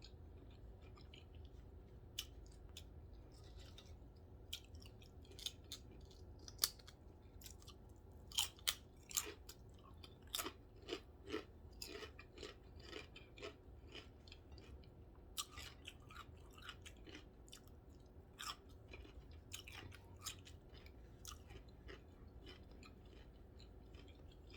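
Close-up chewing of a corned beef sandwich: irregular wet mouth clicks and smacks, busiest through the middle stretch.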